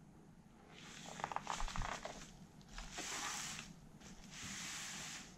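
Bubble wrap rustling and crinkling as a cassette deck is shifted and turned around on it, with a few light clicks and knocks about a second in. Two longer rustles follow, about three and four and a half seconds in.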